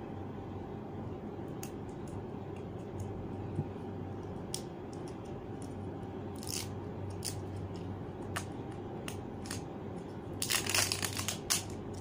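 Someone eating noodles: scattered soft clicks and crunches over a steady low room hum. About ten seconds in, a dense burst of plastic crinkling as a plastic packet is handled.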